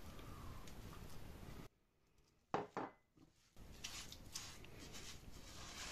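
Silicone spatula scraping honey from a small bowl and then stirring it through thick poppy-seed paste in a saucepan: soft scraping and rubbing strokes. A brief louder sound comes about two and a half seconds in, during a near-silent gap.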